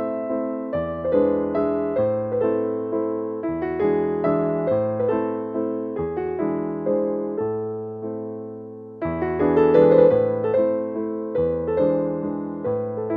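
Background piano music: a melody of struck notes over held bass notes, easing off briefly about eight seconds in before picking up again.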